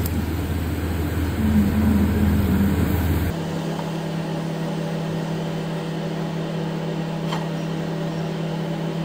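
Steady mechanical hum with low tones, its pitch stepping up abruptly a little over three seconds in.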